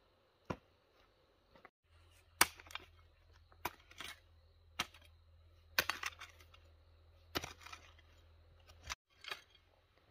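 A series of about a dozen sharp, irregular knocks and clicks, a second or so apart, like objects being handled and set down.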